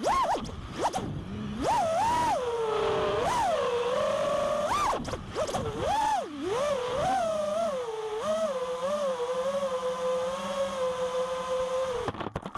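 FPV quadcopter's brushless motors (Black Bird motors) whining. The pitch swoops up and down with each throttle punch, then holds steady for the last few seconds before cutting off near the end.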